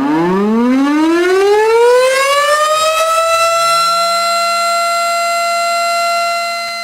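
Tornado siren winding up: its pitch rises steadily for about four seconds, then holds a steady tone, a little quieter near the end.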